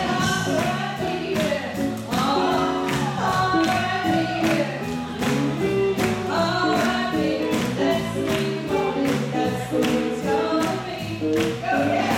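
Live swing band playing to a steady beat, with a singer.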